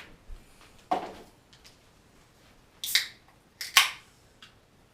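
Short handling clicks and crinkles from a plastic Diet Pepsi bottle, a few separate sudden sounds with the two loudest about three and four seconds in.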